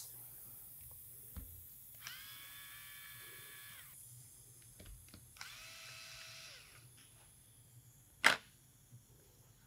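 Cordless electric screwdriver motor whining in two short runs, about two seconds and then a second and a half, each spinning up and winding down as it backs out the cheek-rest screws of an FX Impact M3 air rifle. A single sharp click comes near the end.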